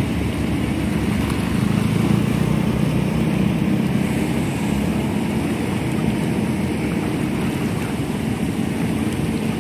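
Diesel engine of a long-arm Kobelco excavator running steadily under load as its hydraulics work the arm, a little louder about two seconds in.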